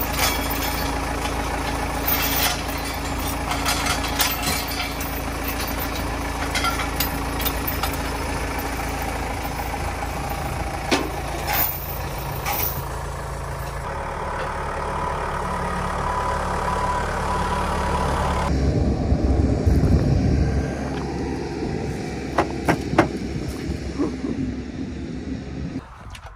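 Case 580 Super M backhoe loader's diesel engine running steadily, with a few metallic clanks. About two-thirds of the way through it runs harder and louder for a few seconds, and the sound cuts off just before the end.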